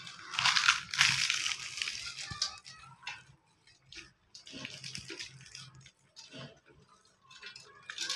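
Puffed, crisp fried bhature torn apart by hand: a burst of crackling and rustling in the first couple of seconds, then softer scattered rustles and clicks over a faint steady hum.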